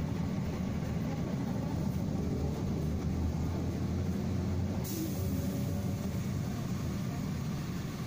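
Cabin noise of a moving trolleybus: a steady low rumble, with a brief hiss about five seconds in.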